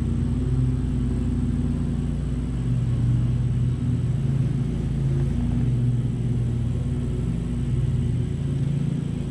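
Honeybees humming in a steady drone around an open hive as a frame is inspected.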